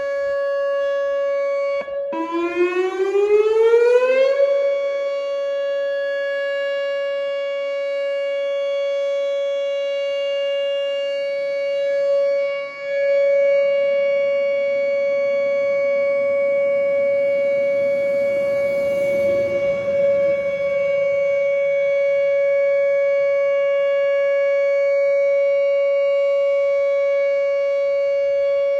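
Whelen WPS 2910 electronic outdoor warning siren sounding its monthly test. It gives a steady tone that breaks briefly about two seconds in, rises in pitch over about two seconds, and then holds one steady tone.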